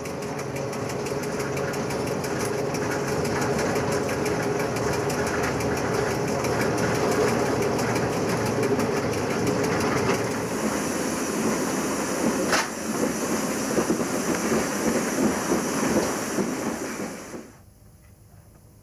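Electric railway unit hauling a snow spreader, heard from inside its cab: a steady mechanical running noise with a steady hum. There is one sharp click about two-thirds of the way through, and the noise drops away abruptly near the end.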